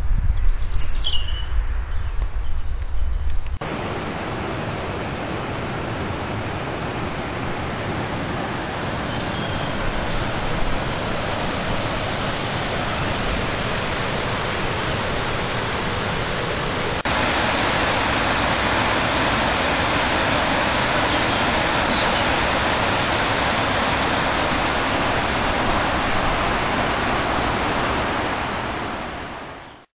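River water rushing over a low weir: a steady hiss of white water that steps up louder about halfway through and fades out near the end. At the start, low wind rumble on the microphone and a single descending bird chirp come before the water.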